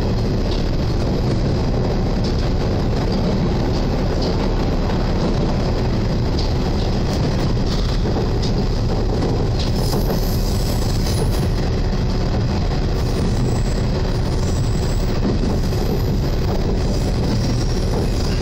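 Diesel railcar running along the line, picked up as a steady, loud rumble and vibration through the cab's front window glass and heavily distorted. About ten seconds in, a brief high-pitched hiss rises over the rumble.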